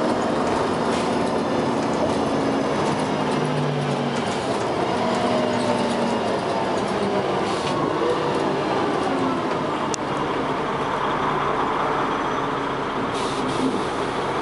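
Dennis Arrow double-decker bus running on the road, its engine and ZF gearbox heard from on board. Faint whines rise and fall in pitch as the bus drives.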